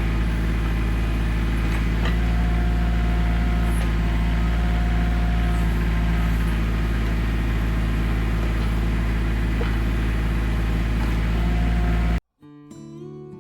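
Engine running steadily under a constant load, then cut off abruptly about twelve seconds in, when acoustic guitar music begins.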